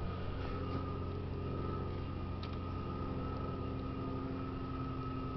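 A steady low mechanical hum with a faint, thin high whine above it; no starter cranking and no engine catching.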